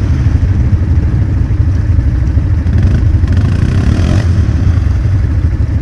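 ATV engine running with a steady low rumble.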